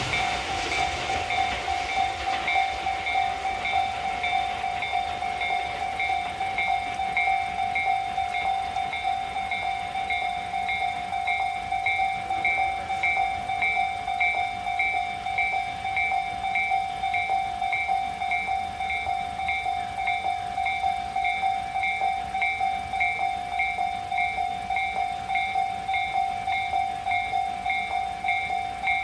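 Japanese electronic level-crossing alarm ringing in a steady, rapid, unbroken series of dings: the crossing is closed and warning that a train is coming. The noise of a passing train dies away in the first second.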